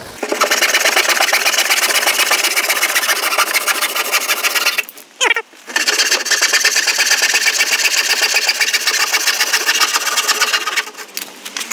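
Handsaw sawing through the horn on the end of a painted timber garage door, in fast, even back-and-forth strokes. The sawing stops briefly about five seconds in, then carries on until near the end.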